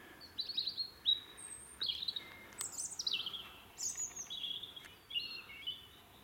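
A songbird singing a run of short, high, varied phrases, several of them falling in pitch.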